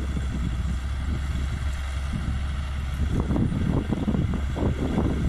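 John Deere 6170M tractor's six-cylinder diesel engine running steadily under load while pulling a five-bottom plow, a low drone with an uneven rumble that grows stronger about halfway through.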